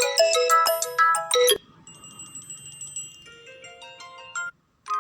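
Phone ringtone previews playing in a notification-tone picker. A loud chiming melody of quick notes cuts off suddenly about a second and a half in. A quieter, different tone then plays and stops shortly before the end.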